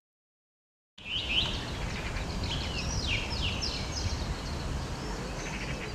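Silence for about a second, then small birds singing, quick chirps and trilled phrases, over a steady low rumble of outdoor noise.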